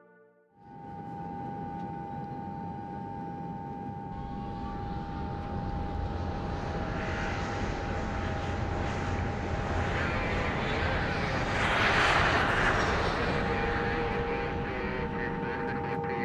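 Passenger jet noise: a steady low rumble with a high steady whine, starting abruptly and swelling to a loud rushing hiss about twelve seconds in before easing off.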